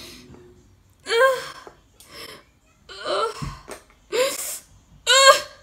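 A woman's short, breathy gasps, about five of them roughly a second apart, as she half-laughs and tries to hold back tears.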